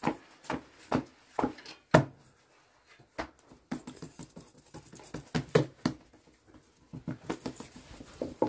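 Hands slapping a thin sheet of flatbread dough, tossed from palm to palm about twice a second. After a short pause, a quicker run of lighter pats follows as the dough is patted out flat on a cloth, and the slapping starts again near the end.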